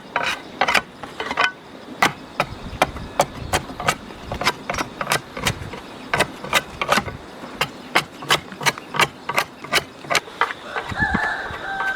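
A hand tool striking hard over and over in a steady rhythm, about two to three blows a second. A short pitched sound comes in near the end.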